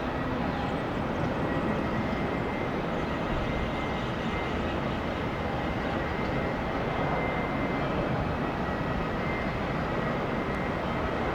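Embraer E190 jet airliner landing, its two turbofan engines giving a steady rumble and hiss, mixed with strong wind on the microphone. A faint thin whine sits over the noise.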